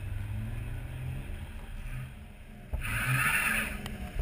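A BMW 525 TDS's straight-six turbodiesel running at low road speed, a low steady hum that shifts slightly in pitch. About three seconds in, a loud hissing rush lasts about a second.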